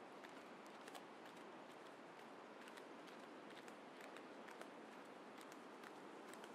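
Faint footsteps of a person walking down a paved path: short, irregular clicks and scuffs over a steady, soft hiss of outdoor background.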